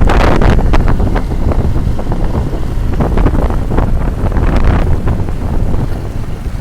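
Heavy wind buffeting the microphone while riding, a loud low rumble broken by irregular crackles.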